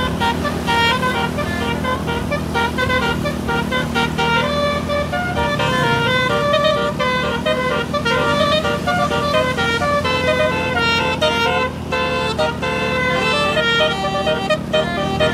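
Indonesian tour bus 'telolet' basuri multi-tone air horn playing a fast tune of short notes stepping up and down in pitch, over a steady low engine hum.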